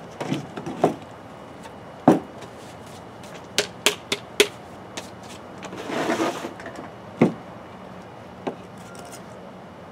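Irregular hollow knocks and clatter of 3-inch PVC pipe and fittings being picked up, set down on a plywood workbench and pushed together, with a short scraping rustle about six seconds in.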